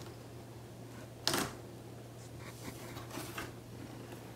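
Light clicks and rustling of cat-litter pellets and cardboard as a kitten shifts in its litter tray, with one louder, sharp scuff a little over a second in and a few faint ticks after.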